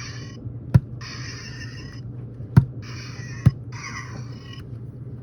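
Electronic sound effects from a Tron disc replica's small built-in speaker: four hissy electronic bursts of about a second each. Sharp switch clicks fall between them, with a steady low hum underneath.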